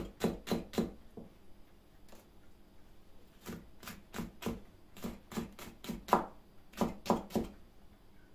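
Knife chopping vegetables on a cutting board: a few quick cuts, a pause of about two seconds, then a steady run of cuts at about three a second.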